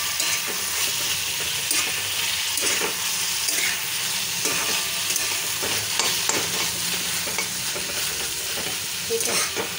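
Moringa drumstick pods and onion sautéing in oil in a pan, sizzling steadily, with the irregular scrape and clink of a steel spatula stirring them.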